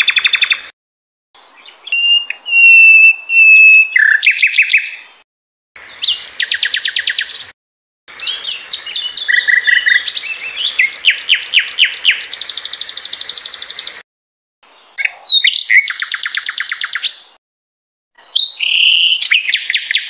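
A sikatan londo songbird singing in varied phrases, each a fast run of repeated chirps or trills. A short silent pause falls between phrases, and one early phrase is a steady whistled note held for about two seconds.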